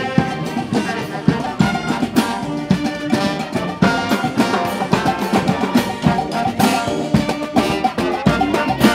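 Marching band playing as it passes close by: snare and bass drums beat a rhythm under sustained brass notes.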